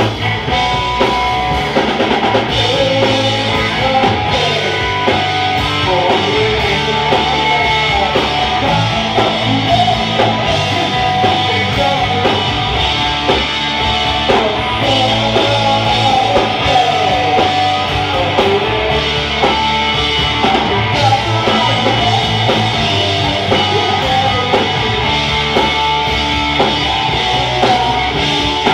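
Rock band playing live: electric guitars and a drum kit.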